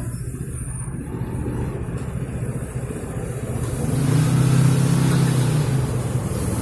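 Street traffic: a motor vehicle's engine humming low and steadily, growing louder about four seconds in and easing slightly near the end.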